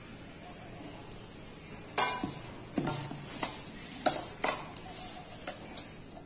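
Stainless steel mixing bowl knocking and clanking as crumbly wheat-flour dough is mixed by hand in it and the bowl is steadied on the counter. About two seconds in come a string of sharp knocks, some briefly ringing, the first the loudest.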